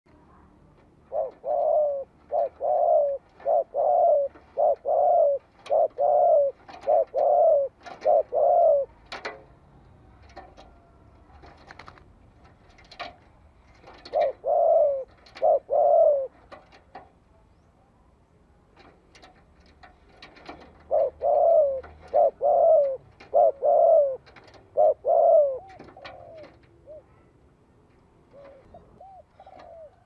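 Spotted dove cooing: runs of repeated low coo notes, a long run of about ten in the first nine seconds, a short run of three near the middle, and another run of about six in the last third.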